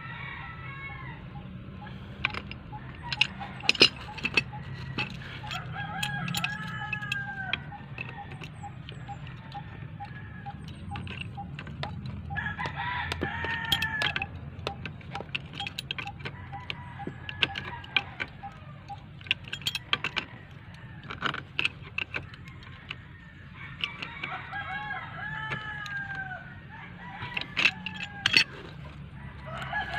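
Roosters crowing several times, each call rising and falling. Between and under the crows come sharp metallic clicks and knocks from a pipe wrench working the water meter's threaded fittings.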